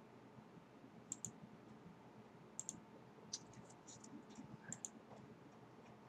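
Computer mouse clicking: a handful of faint, sharp clicks, several in quick pairs, over a faint steady hum.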